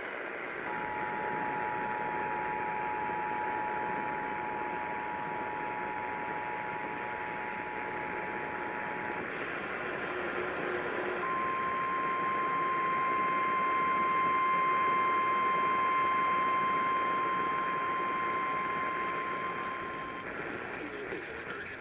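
Emergency Alert System two-tone attention signal over hissy radio reception: two steady tones sounding together for about eight and a half seconds. After a short gap comes a single steady 1050 Hz NOAA Weather Radio warning alarm tone for about nine seconds, heralding a tornado warning.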